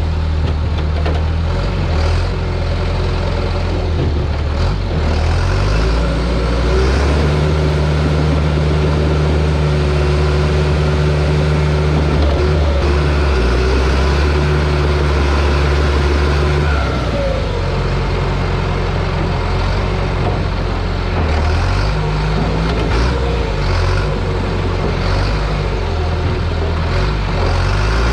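John Deere bulldozer's diesel engine running under load as it pushes logs. The engine note steps up a few seconds in, holds steady for about ten seconds, then drops and wavers.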